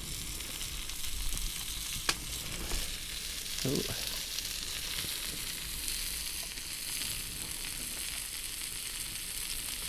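Food sizzling and frying on a hot griddle over a wood fire, a steady hiss with one sharp click about two seconds in.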